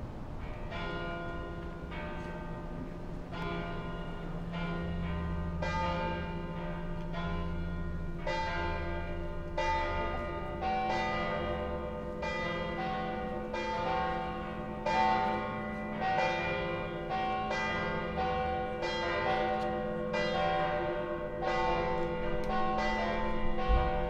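Church bells of St. Mary's Cathedral (the Dome Church), Tallinn, pealing: several bells struck one after another with their rings overlapping. The strokes start sparse and become busier and slightly louder after the first several seconds.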